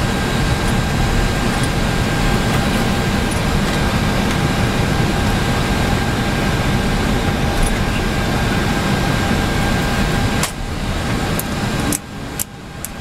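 Steady machine noise in an Airbus A320 cockpit on the ground: a deep hum of engines and air conditioning with thin steady tones above it. The noise dips briefly about ten and a half and twelve seconds in, with a few sharp clicks near the end.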